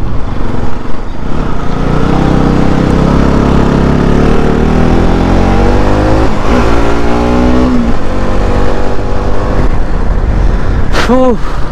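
Bajaj Pulsar NS200's single-cylinder engine pulling hard up a hill road, its pitch rising, dropping sharply at a gear change about six seconds in, then rising again before easing off. Steady low wind rumble on the bike-mounted microphone underneath.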